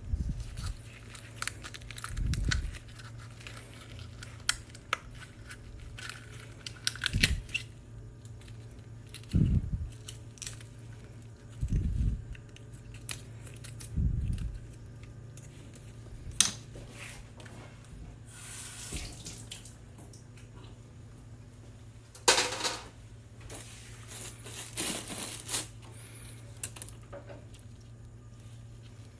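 Oysters being shucked by hand with a knife: irregular clicks and scraping of the blade against shell, dull knocks as shells are handled and dropped, and rustling of a plastic bin liner. A steady low hum runs underneath.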